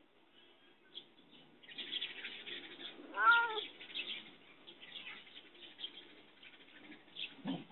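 A confined cat meows once, loudly, about three seconds in, crying to be let out. The meow comes amid scratchy rustling, and a shorter, lower sound follows near the end.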